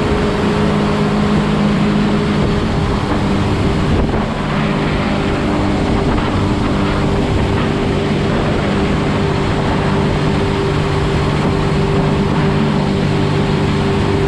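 Jet boat's engine running steadily at speed, a constant drone under the rush of wind and water.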